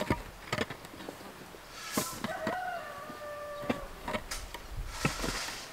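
A rooster crows once, one long call a little over two seconds in, over the knocks and scrapes of a long-handled hoe striking rocky soil.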